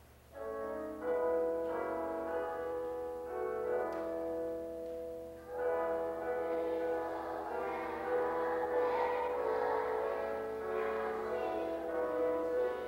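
Keyboard music with held chords that begins about half a second in and grows fuller from about halfway.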